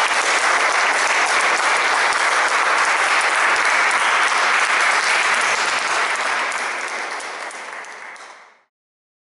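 Audience applauding steadily, the clapping thinning out over the last couple of seconds and then cutting off abruptly near the end.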